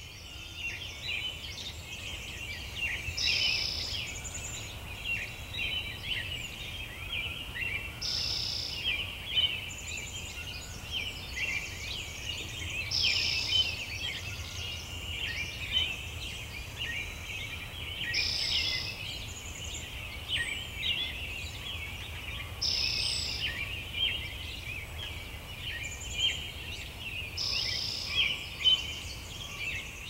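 Forest ambience of birdsong: a dense chorus of quick chirps, with one short, higher song phrase repeating about every five seconds, over a low steady rumble.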